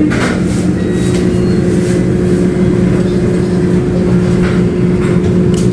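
Steady, loud mechanical hum of restaurant equipment, such as kitchen ventilation or refrigeration. It holds a low drone and a higher steady tone, with a few faint clinks.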